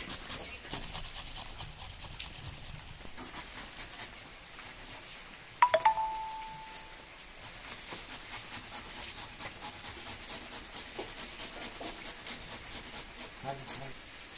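Carrots being grated by hand on a metal grater over a stainless steel bowl: rapid rasping strokes. About halfway through, metal knocks twice against the steel bowl, which rings briefly.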